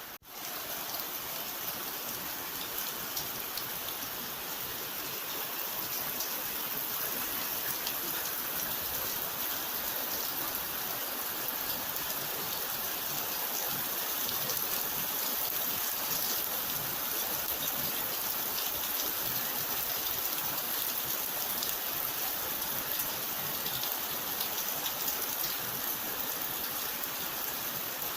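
Steady rain falling: an even hiss with faint scattered drop ticks. It cuts out for an instant at the very start, then holds steady.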